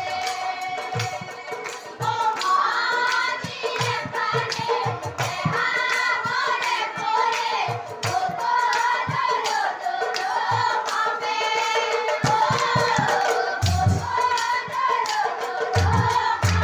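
Nagara naam devotional singing: women's voices singing a wavering melody together, with hand clapping and irregular drum beats. The singing comes in about two seconds in.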